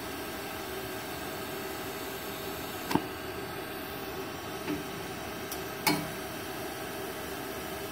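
Steady hiss of a DC TIG welding arc run from an EG 250A-SC MMA stick inverter welder set up for lift-arc TIG. Sharp clicks come about three seconds in and again about six seconds in, where the arc is broken off and struck again.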